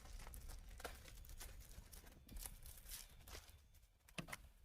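Faint crinkling and rustling of a plastic bag being opened and handled, with scattered small clicks.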